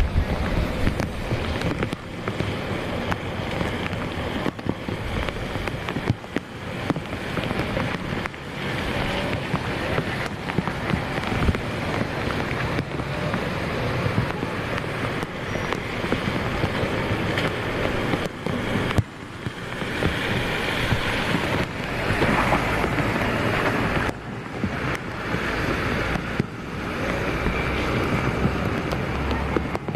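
Wind buffeting the microphone: an uneven rumbling hiss that swells and dips, growing brighter in the second half, with a brief drop about two-thirds of the way through.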